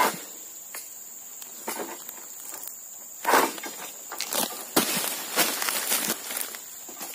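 Long-pole egrek sickle working high in an oil palm crown: a series of scraping, rustling strokes against the fronds, loudest about three seconds in and clustered near the end. Under it runs a steady high-pitched insect drone.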